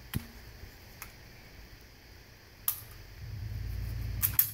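A handgun is drawn from a concealed holster under a shirt and handled in a dry-fire drill: a few sharp clicks and knocks, the loudest cluster near the end, with a low rumble of movement in the last second.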